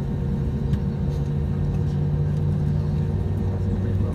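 Steady low drone inside an Airbus A320neo airliner cabin on the ground before takeoff, with a constant hum underneath.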